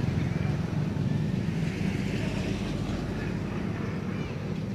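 Steady low rumble of outdoor background noise, with a few faint short high chirps over it.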